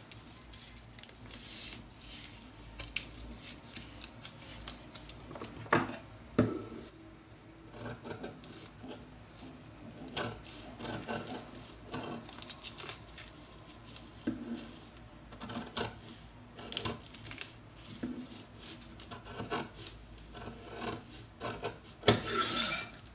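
Folded paper pattern being handled and cut with scissors: irregular paper rustling and crinkling with short snips, and a louder rustle near the end.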